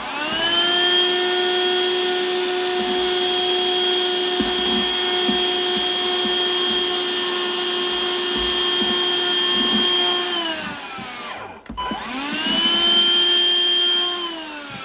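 Gtech Multi handheld cordless vacuum running with a steady, high motor whine as it picks up loose model-railway ballast, with light rattles underneath. It is switched off about ten seconds in and winds down, is switched on again a second later, and winds down once more near the end.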